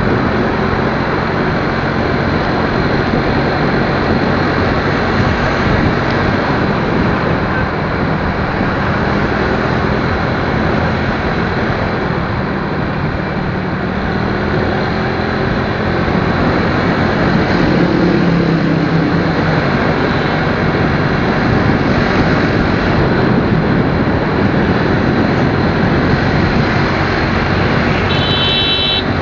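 Steady, loud riding noise from a motorcycle: wind rushing over the microphone with the engine running underneath. A brief high-pitched beep sounds near the end.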